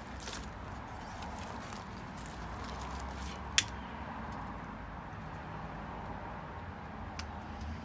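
Long-nosed butane utility lighter clicking once, sharply, about three and a half seconds in, as it sparks to light fire-starter cubes. A steady low rumble runs underneath.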